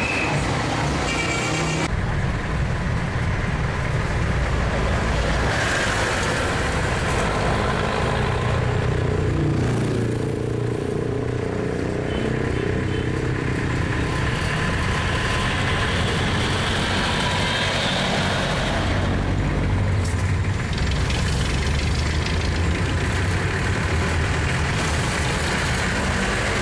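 Street traffic: jeepneys' diesel engines running and passing by on the road, with an abrupt change in the sound about two seconds in.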